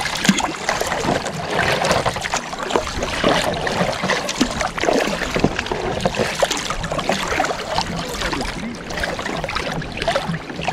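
Kayak paddle strokes: the blades dipping and pulling through the water, with water trickling and splashing off the paddle and along the hull.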